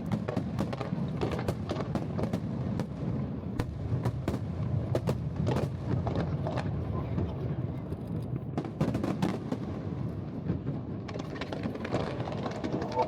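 Aerial fireworks going off: many sharp bangs and crackles in quick, irregular succession over a low, steady rumble.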